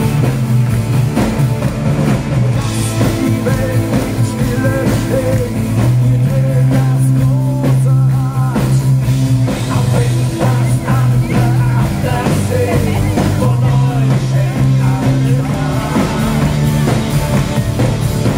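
Live rock band playing loudly: electric guitars, bass, keyboards and drums, with held bass notes under a melodic line.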